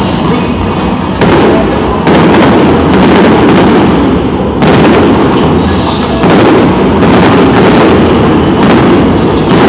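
Aerial fireworks shells bursting, loud, with about four heavy booms a second or two apart over a constant din of bursts between them.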